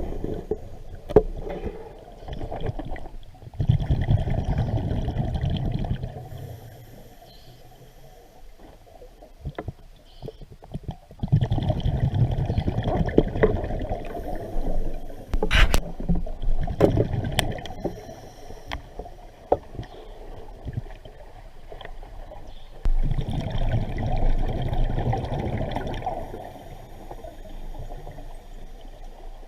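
Water sloshing and splashing in three spells, with scattered sharp knocks between them.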